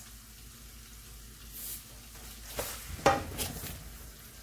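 Meat and onions sizzling faintly in a metal pot while a wooden spoon stirs them, scraping and knocking against the pot a few times in the second half, loudest about three seconds in.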